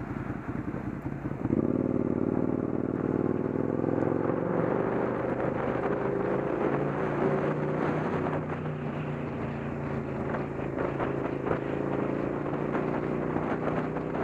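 Motorcycle engine picking up about a second and a half in, rising slightly in pitch as it accelerates, then running steadily at cruising speed.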